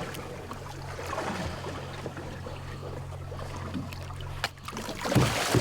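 Boat motor idling with a steady low hum and a haze of noise; the hum stops suddenly about four and a half seconds in, and a louder rush of noise follows near the end.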